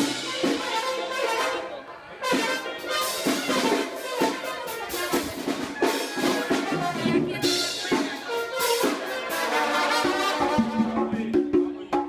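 Banda sinaloense playing: trumpets and trombones over drums and percussion, with a brief dip in the playing about two seconds in.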